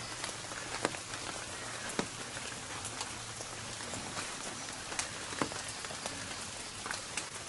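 Light rain falling, a steady hiss with scattered sharper drops ticking at irregular moments.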